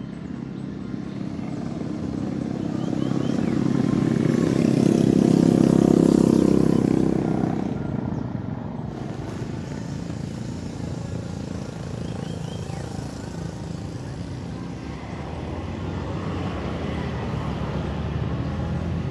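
A motor engine passing by, swelling to its loudest about six seconds in and fading away by eight seconds, then a lower steady engine hum that grows again near the end.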